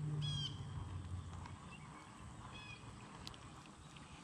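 A bird calling: a short call near the start and again about two and a half seconds later, with a third just at the end. A low hum sits under the first second and a half.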